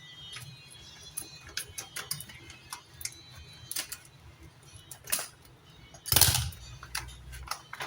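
A plastic bag of rice being cut open: a series of small clicks and ticks, with a louder, noisier rustle of the bag about six seconds in.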